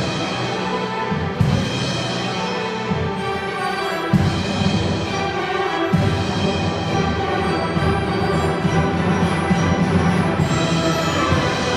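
Symphony orchestra playing sustained chords, with timpani strokes marking new chords a little over a second in, about four seconds in and about six seconds in.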